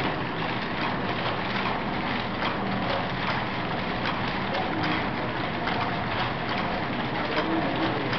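Vial washing machine running, with continual rapid, irregular clicking and clattering over a steady rush of noise.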